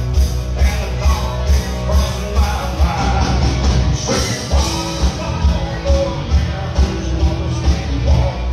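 Live country band playing: acoustic and electric guitars over a drum kit keeping a steady beat, with a man singing lead into the microphone for the second half.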